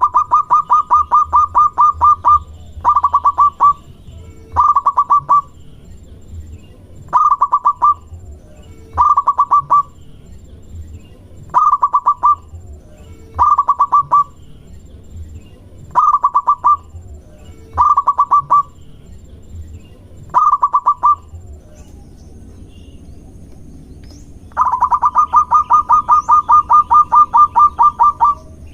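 Zebra dove (perkutut) calling in phrases of rapid staccato pulsed notes. A long phrase opens, then comes a string of short phrases about two seconds apart, a pause of a few seconds, and another long phrase near the end. This is lure song meant to draw a reply from other perkutut.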